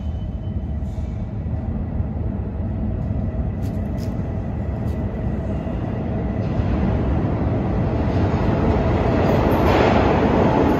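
New York City subway D train approaching through the tunnel toward the station: a low rumble that grows steadily louder and fuller over the last few seconds.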